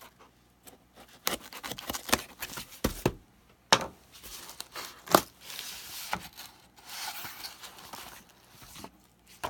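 A hobby knife slitting packing tape on a cardboard box, then the box being opened and a paper catalogue and bubble wrap being handled. The result is a run of scrapes, rustling and sharp clicks of cardboard, with two louder snaps about a second and a half apart midway.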